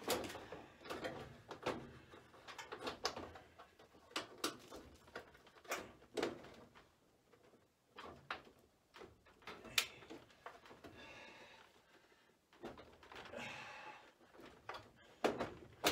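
Scattered knocks, clicks and scrapes of hands handling the washer's top panels as an old Whirlpool top-load washer is put back together, with a short quiet stretch midway.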